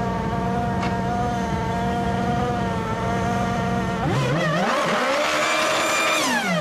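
Pilbeam SR20 hillclimb car's engine idling steadily. About four seconds in it revs hard, the pitch climbing and wavering as the rear tyres spin and smoke in a burnout. The revs drop away near the end.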